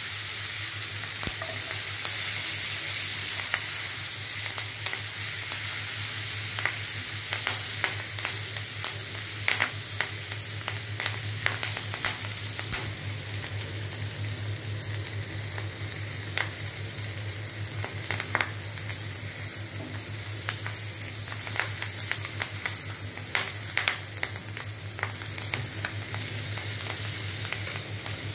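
Green chillies sizzling in hot, foaming fat in a nonstick frying pan: a steady hiss with frequent sharp pops and crackles, which grow more frequent from about six seconds in.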